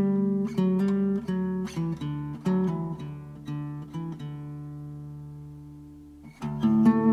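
Background music of picked acoustic guitar. The notes ring out and fade about four seconds in, and the playing starts again near the end.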